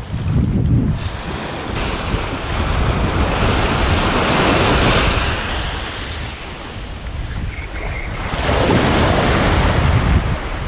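Small waves breaking and washing up a sandy shore, swelling twice, with wind buffeting the microphone.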